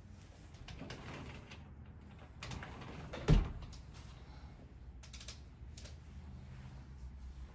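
Scattered clicks and light knocks from someone moving through a small room with a handheld camera, with one sharp low thump about three seconds in.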